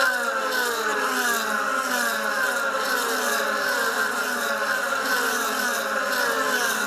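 DTM race cars with 4-litre V8 engines running past one after another, each engine note falling in pitch as it goes by, the overlapping notes blending into one continuous sound.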